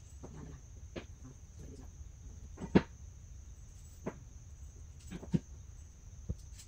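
Dining chair parts being handled and fitted during assembly: a handful of sharp knocks and clicks, the loudest about three seconds in. A steady faint high-pitched tone runs underneath.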